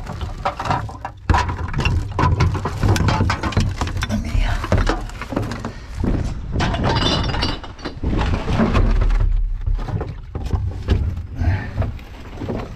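Rubbish clattering and rustling as bin contents are rummaged through by hand, with glass clinking, over a low rumble.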